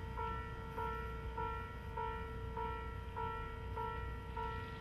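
Japanese level-crossing warning bell ringing in a steady clanging rhythm, about one and a half strikes a second, signalling an approaching train.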